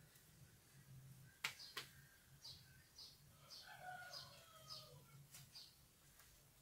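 Faint small-bird chirps repeating every half second or so, with a short run of falling calls around the middle. Two sharp clicks come about a second and a half in.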